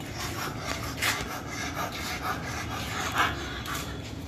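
A Rottweiler panting, mixed with irregular rubbing and scuffing noise, the loudest strokes about a second in and again about three seconds in.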